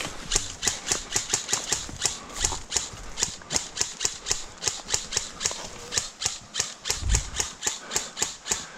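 Airsoft rifle firing a long string of rapid single shots, about four to five sharp clacks a second.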